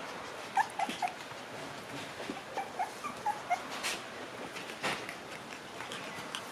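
Month-old Shiba Inu puppies whimpering: a string of short, high whines in the first few seconds, the nervous whimpering of puppies unsettled by unfamiliar noise. Two sharp knocks come about four and five seconds in.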